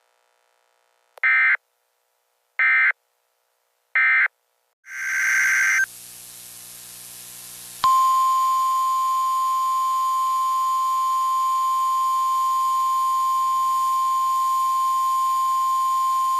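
NOAA Weather Radio weekly test alert tones. Three short screeching bursts of SAME digital header data come first. About eight seconds in, the steady 1050 Hz weather-radio warning alarm tone starts and holds.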